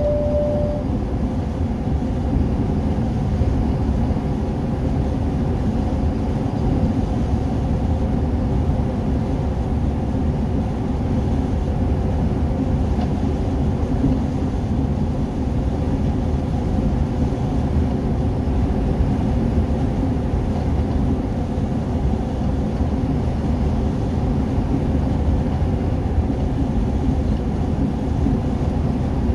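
Steady road and engine noise inside the cabin of a vehicle cruising at highway speed, a dense low rumble that holds even throughout. A brief steady tone sounds for about a second right at the start.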